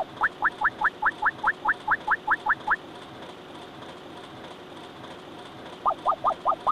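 Cartoon sound effect: a quick run of short rising chirps, about five a second, for nearly three seconds. A second, slightly lower run starts near the end.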